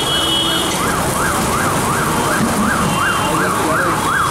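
An emergency-vehicle siren wailing quickly up and down, about three sweeps a second, over a steady hiss of sizzling from the griddle and street noise.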